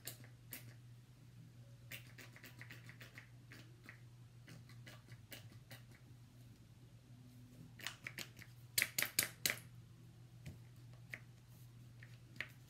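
Faint clicks and taps of hands handling a plastic skincare tube, with a quick run of sharper clicks about nine seconds in, over a low steady hum.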